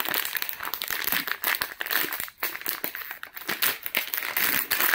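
Thin clear plastic bag crinkling as hands open it and work a coiled power cable out of it, with a brief lull about halfway.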